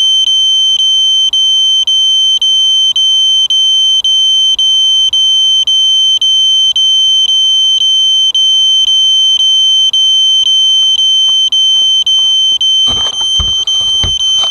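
A piezo alarm buzzer sounding a loud, high, near-continuous tone broken by short gaps about twice a second, the alarm of a downed FPV quadcopter. Near the end, knocks and rustling come in as the drone is handled and turned upright.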